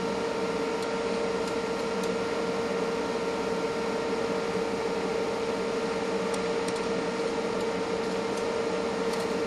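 Steady hum of running bench electronics: an even fan-like whir with a constant mid-pitched tone and a few fainter higher tones, unchanging throughout.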